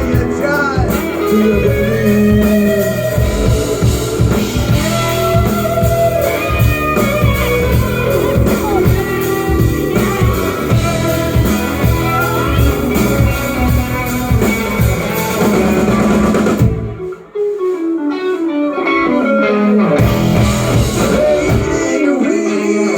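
Live rock band playing an instrumental break led by electric guitar over drums and bass. About 17 seconds in, the bass and drums drop out and the guitar plays a short descending run alone, and the full band comes back in about three seconds later.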